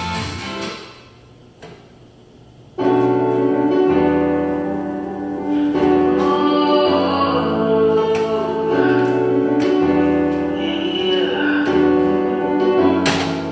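Background music: a song with piano and singing, quiet for the first few seconds and coming back in full about three seconds in.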